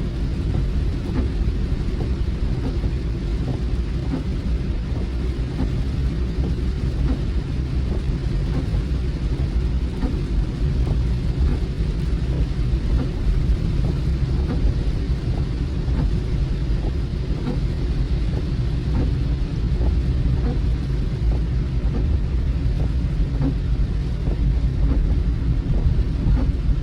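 Steady low road and engine rumble heard inside a moving car, with light scattered ticks of rain hitting the car.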